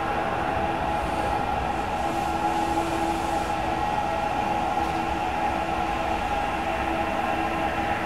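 Sapporo Municipal Subway Tōzai Line 8000-series train heard from inside a car, running steadily between stations on its rubber tyres: a constant rumble with a steady hum of several held tones.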